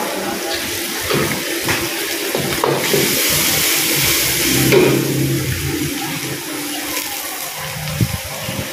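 Water running steadily from a wall tap into a metal pot, with a metal spatula and ladle clinking and scraping in a wok of frying egg and seafood.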